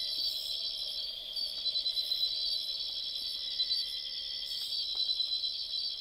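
Night insect chorus: a steady, high-pitched, finely pulsing trill of many insects, with a fainter lower drone beneath it.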